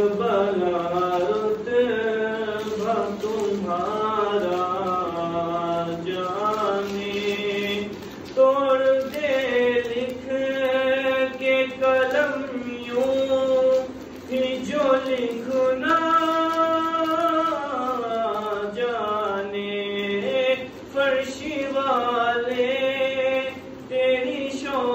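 A young man singing a devotional naat unaccompanied. His voice holds long notes and slides slowly between pitches, with short breaks for breath.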